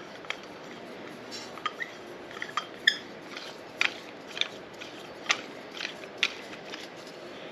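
Metal pipe pieces of a coat rack clinking and tapping together as a column piece is fitted and screwed in by hand: a dozen or so scattered light clicks and knocks, a few of them ringing briefly.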